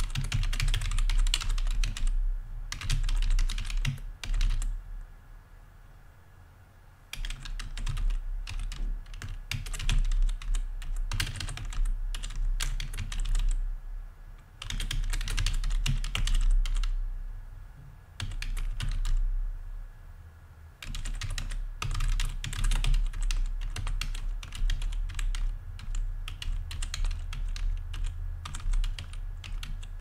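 Fast typing on a computer membrane keyboard: dense runs of key clicks in bursts, broken by short pauses.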